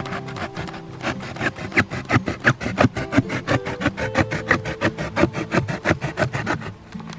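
Wood being cut or scraped by hand in quick, sharp strokes, about seven a second, starting about a second in and stopping shortly before the end. Background music with held notes plays underneath.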